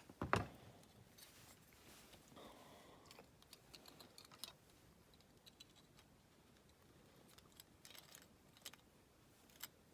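Faint handling of a small clear plastic model window being polished: soft rubbing with scattered light clicks, and one sharper click just after the start.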